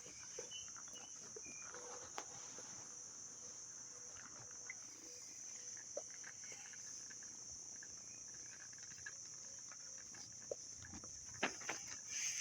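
Kittens playing: scattered small taps, scuffles and scratches, with a cluster of louder clicks near the end, over a steady high hiss.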